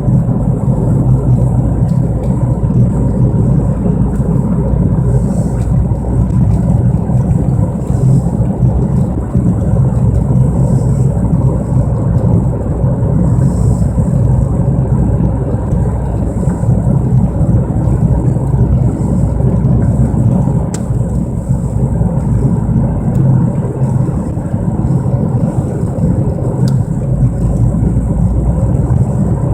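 Loud, steady low drone from a 1997 Mercury Mystique on the move, a noise that starts under acceleration and grows louder with road speed; the owner asks whether it is a worn wheel bearing or the brake rotors.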